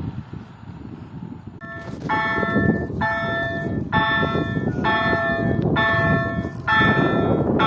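Railway level-crossing warning bell starting about two seconds in, ringing with repeated strokes roughly once a second over a low rumble of an approaching train, which grows louder near the end as a freight train with a Vectron locomotive comes through.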